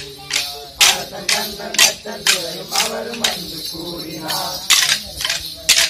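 Kolattam sticks clacking together in a steady rhythm, about two sharp strikes a second, with a voice singing over the beat.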